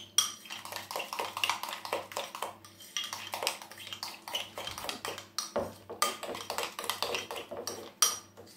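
Metal spoon stirring a thick yogurt-and-mustard dip in a glass bowl, clinking irregularly against the glass with a few sharper taps.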